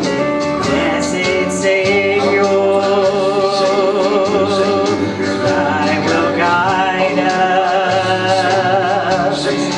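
A woman singing a country gospel song through a handheld microphone over a recorded backing track with a steady beat.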